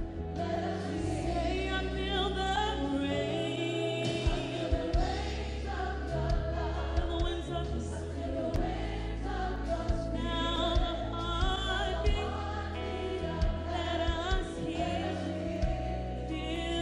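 Live gospel worship song: a woman singing lead into a microphone, backed by a choir, keyboards, bass and drums.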